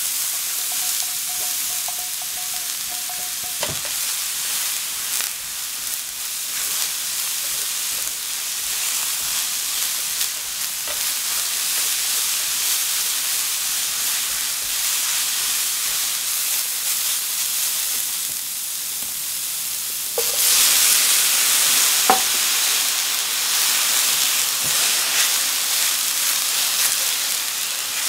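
Diced aubergine flesh sizzling in hot oil in a frying pan, stirred and scraped with a silicone spatula. About two-thirds of the way through, cauliflower pieces go into the pan and the sizzle gets louder, with a sharp knock of the spatula against the pan soon after.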